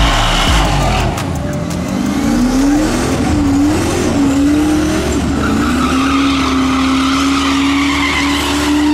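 A drag car doing a burnout on the starting line: the engine revs up unevenly for a few seconds, then is held at a steady high rpm while the spinning rear tyres squeal, and it cuts off sharply at the end.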